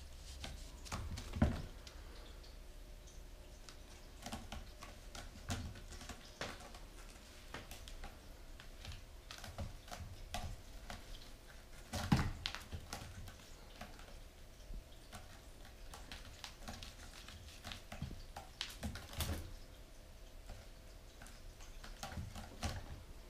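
Kitten's claws catching and scraping on a sisal-rope scratching post in irregular clicks, with a few louder thumps, about a second and a half in, near the middle and again later.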